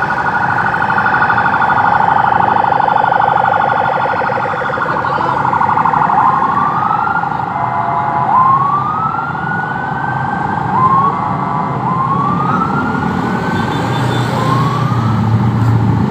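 Police car siren sounding, a fast warbling tone for the first few seconds, then a string of short rising whoops.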